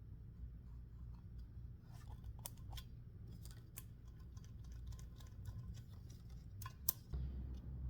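Faint pencil tracing around a wooden tabletop onto a sheet of paper to make a template: scattered light scratches and ticks, over a steady low hum.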